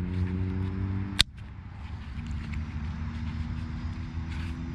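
Steady low engine hum, with one sharp click about a second in, after which the hum continues a little quieter.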